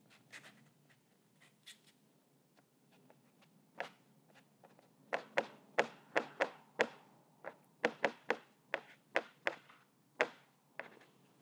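Paper towel dabbed against a textured painting on a tabletop. It makes a few scattered light taps, then from about five seconds in a run of them, about two or three a second.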